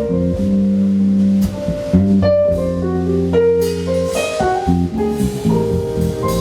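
Jazz band playing live, with keyboards and drum kit: an instrumental passage with sustained melody notes over a moving bass line.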